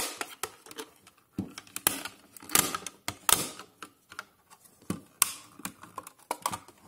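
Hard plastic router case cracking and snapping in a series of irregular sharp clicks as its shell is forced apart by hand, breaking past clips and security Torx screws that were never removed.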